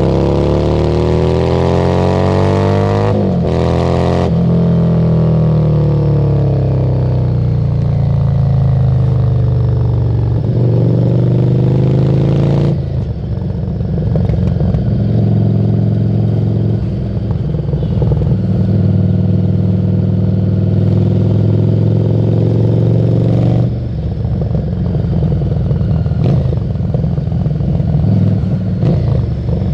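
Harley-Davidson Street 750's V-twin engine through a Screamin' Eagle exhaust while riding. It climbs in pitch under acceleration with two quick breaks at gear changes about three and four seconds in. It then winds down off the throttle, picks up again briefly, and settles into a steady cruise.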